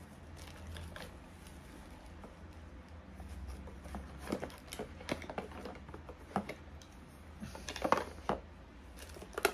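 Small make-up items and their packaging being handled and packed into a box: a scattered run of light clicks, taps and rustles, busiest in the second half.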